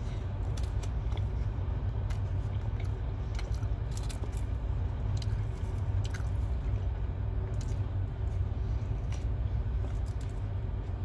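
A man biting into and chewing a sandwich close to the microphone, with scattered short wet clicks of the mouth, over a steady low rumble in the vehicle cab.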